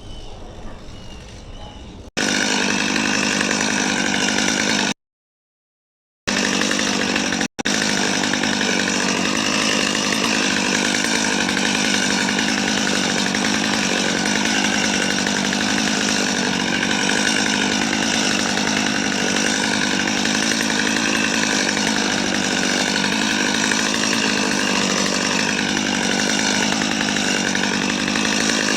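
Faint birdsong, then about two seconds in a loud, steady mechanical drone cuts in abruptly, its pitch wavering slowly up and down. This fits the JCB 55Z excavator's diesel engine working under hydraulic load. The drone cuts out twice briefly, once for about a second.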